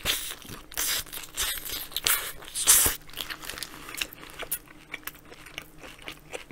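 A person biting into and chewing a Burger King Whopper, with crisp crunches for the first three seconds, then quieter chewing.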